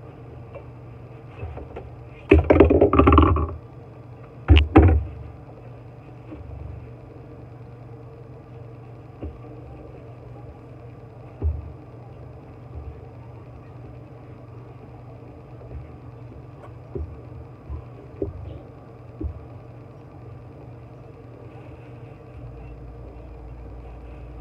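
A steady low mechanical hum runs throughout. About two seconds in there are two loud bursts of rubbing and crinkling noise, the first about a second long and the second shorter, as a paper towel wipes a metal kitchen faucet. A few faint taps follow later.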